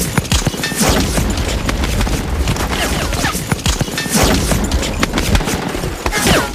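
Battle sound effects: dense, continuous gunfire with booming explosions, many shots overlapping.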